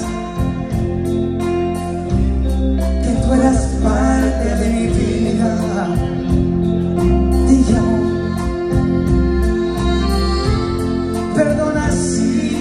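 Live grupera band playing a romantic song: singing over guitars, accordion and drums.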